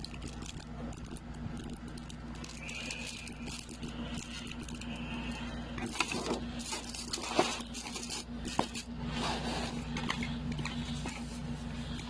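Handling noise from unboxing a mouse and keyboard kit: rustling and scraping of packaging, with a few sharp clicks about six to nine seconds in, over a steady low hum.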